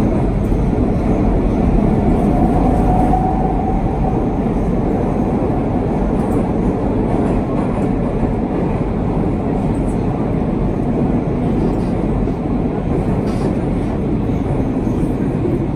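Minsk Metro train running through the tunnel, heard from inside the car: a steady loud rumble of wheels and running gear, with a faint rising whine about two and a half seconds in.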